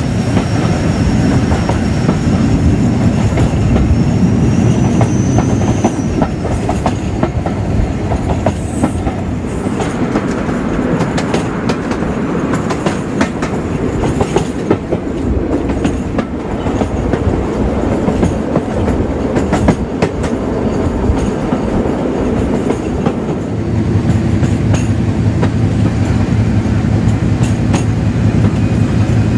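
Class 56 diesel locomotive's Ruston Paxman 16-cylinder engine running under power, with the train's wheels clicking over rail joints through the middle of the stretch. Near the end the engine settles into a steadier note.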